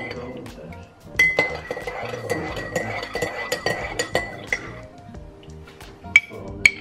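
Metal teaspoon stirring in a ceramic mug, clinking rapidly against the sides for about four seconds, followed by two sharp clinks near the end.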